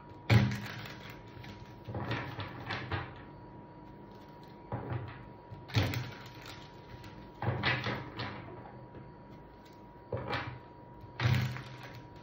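A tarot deck being shuffled and handled on a table: cards sliding and tapping in short bursts every second or two.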